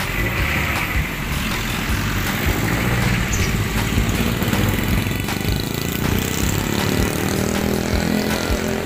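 Street traffic: vehicle engines running, with one engine rising in pitch over the last few seconds.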